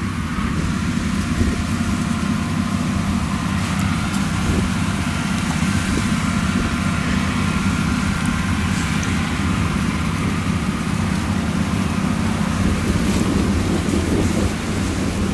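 Claas Lexion 760 TT combine harvester running steadily under load, its engine and threshing machinery going while it harvests maize and unloads grain through the side auger.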